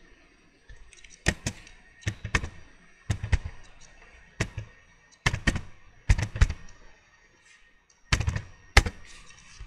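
Computer keyboard typing: about a dozen sharp key clicks, struck one at a time in uneven clusters with short pauses between, as a ping command is typed out.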